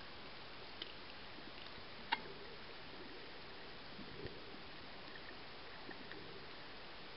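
Muffled underwater ambience picked up by a submerged camera: a steady hiss with scattered sharp clicks, the loudest about two seconds in, and a duller knock about four seconds in.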